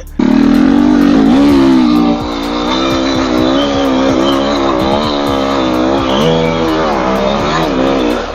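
Off-road vehicle engine held at high revs, its pitch wavering up and down with the throttle; it starts abruptly.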